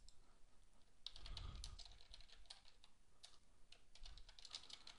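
Faint typing on a computer keyboard: quick, irregular keystrokes that begin about a second in.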